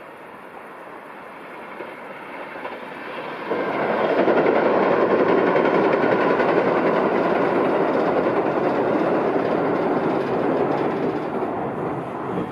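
Kintetsu limited express electric train passing over a steel girder railway bridge, a rumble of wheels and bridge. It builds as the train approaches, jumps louder about three and a half seconds in, holds for several seconds, then fades as the train leaves near the end.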